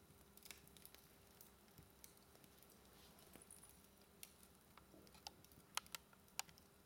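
Wood fire crackling in a fireplace: faint, scattered sharp pops and snaps at irregular intervals, with a few louder ones near the end.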